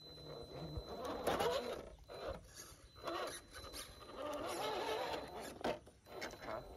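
Electric motor and gear drive of a 1/10 RC rock crawler whining in several short bursts as it climbs, with its tyres scrabbling and scraping on rock.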